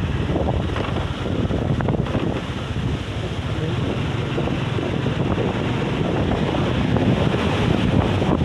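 Very strong wind buffeting the microphone in a continuous rumbling rush that surges a little: a gale strong enough to lift sand off the beach.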